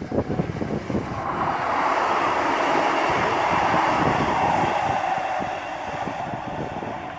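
Northern Class 158 diesel multiple unit passing close by and running away: a steady rush of engine and wheels on rail that swells to its loudest about four seconds in, then fades. For about the first second, the last sharp exhaust beats of a steam locomotive are heard before they cut off.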